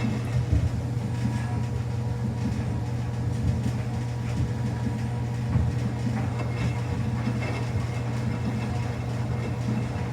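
Samsung washing machine running a quick wash cycle loaded with two bath towels and a small towel: a steady low motor hum with irregular soft thuds and swishes as the drum turns the load.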